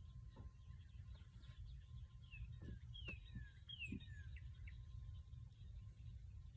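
Birds chirping, a run of short falling notes about two seconds in that lasts a couple of seconds, faint over a low steady rumble.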